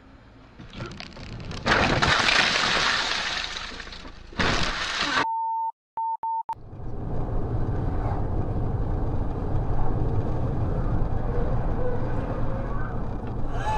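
Car dashcam audio of a collision with a wheel loader: a loud, harsh rush of noise lasting about three and a half seconds, broken by short beeps, then the steady hum of a car driving on a highway.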